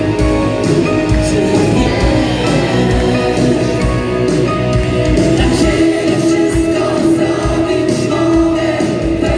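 Live rock band playing a song: lead vocals over electric guitar, keyboards and drums, with steady drum hits.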